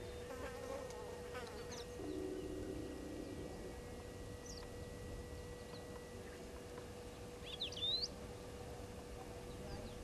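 Waterhole bush ambience: insects buzzing over a steady faint hum. A flying insect buzzes close by for about a second and a half, starting about two seconds in. Short high bird chirps come and go, the loudest a quick run of rising chirps near the end.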